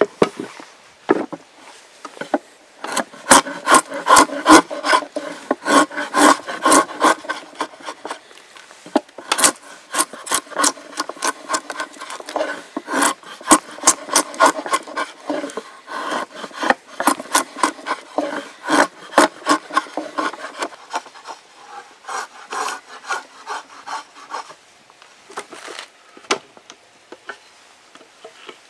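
Drawknife shaving dried ash wood: a run of quick, repeated scraping strokes as the blade peels off curled shavings, easing off briefly twice and tailing off near the end.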